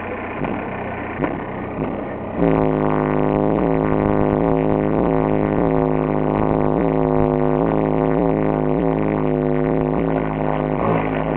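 A car engine idling, then about two seconds in the car's stereo starts playing music through four Kicker CVR 15-inch subwoofers. The music is loud, with heavy, steady bass.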